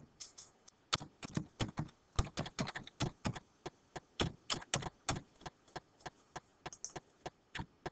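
Typing on a computer keyboard: a run of uneven key clicks, a few a second.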